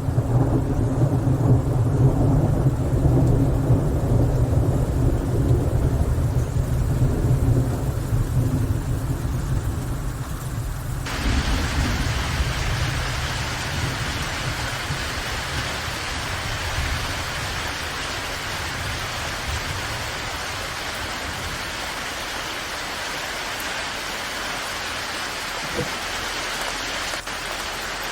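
Low rumbling thunder for about the first eleven seconds, then an abrupt change to steady falling rain.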